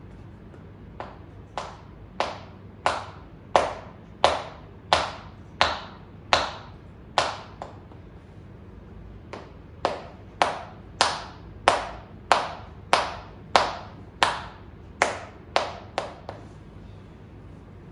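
Percussive shoulder massage: hands striking a client's towel-covered shoulders in a steady rhythm, about one and a half sharp, slightly ringing slaps a second. There are two runs of about ten strikes each, with a short pause between them a little before halfway.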